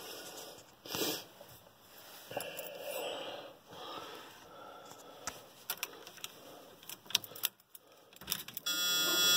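Ignition keys jangling and clicking against the steering column of a 1978 GMC Suburban as the key is worked. Near the end, the dash warning buzzer comes on with a steady tone as the key is turned to on, a sign the cold-soaked truck's battery still has charge.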